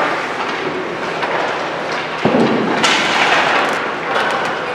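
Ice hockey practice in an echoing rink: a steady clatter of skates, sticks and pucks, with a sudden loud bang about two seconds in and a harsher, brighter clatter from about three seconds.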